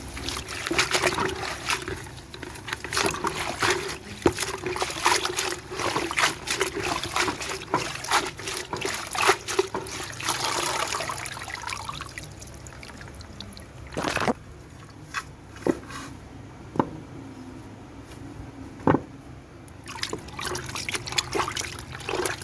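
Asthma weed (Euphorbia hirta) being washed by hand in water: splashing and trickling with many small clicks for about twelve seconds, then quieter, with a few separate knocks, and more splashing near the end.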